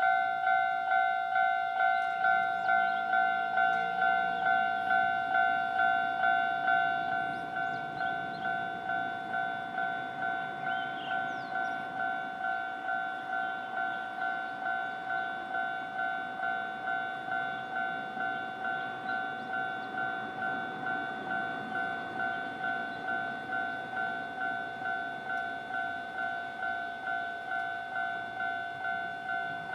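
Japanese railway level-crossing warning bell ringing in a steady, even rhythm of two-tone dings. It drops to a lower volume about seven seconds in and keeps ringing.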